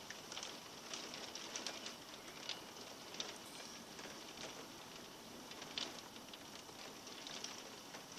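Heavy rain falling, a steady hiss with occasional louder drops and splashes.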